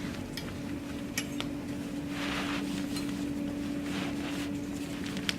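A metal tube being worked into the fabric channel of a bassinet: fabric rustling in soft swells, with a few light clicks as the tube and plastic parts knock. A steady hum runs underneath.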